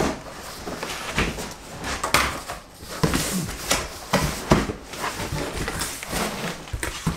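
Flaps of a large corrugated cardboard box being pulled open and folded back: irregular scraping and rustling of cardboard, with some light knocks.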